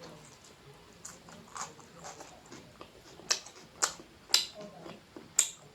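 Close-up eating sounds: a person chewing a mouthful of rice and egg gravy, with soft mouth clicks at first and then four sharp smacks or clicks in the second half.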